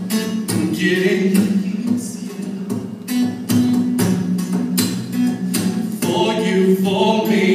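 Live acoustic guitar strummed in a steady rhythm, with a brief sung phrase about a second in and again near the end.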